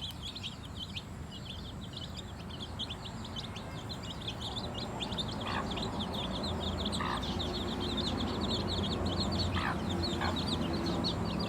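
A flock of chicks peeping continuously, many short high cheeps each falling in pitch. A few lower calls from another bird stand out about halfway through and near the end, over a low hum that grows louder in the second half.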